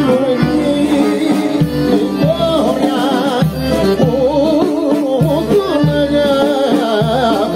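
Live Greek folk band playing a dance tune, amplified: a male voice singing an ornamented, wavering melody over accordion and a steady drum beat.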